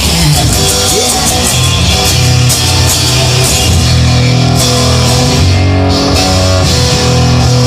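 Instrumental rock music: held bass notes under electric guitar with drums and cymbals, with no singing.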